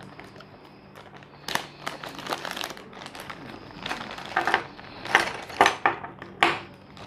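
Clear plastic bag crinkling as hands open it and shake small plastic mount parts out, in several irregular bursts of rustling.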